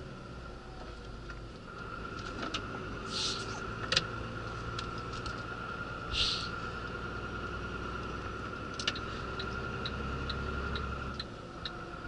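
Iveco lorry heard from inside its cab while driving: a steady diesel engine hum with road noise. There are two short hisses about three and six seconds in, a few sharp clicks, and a regular light ticking of about two a second near the end.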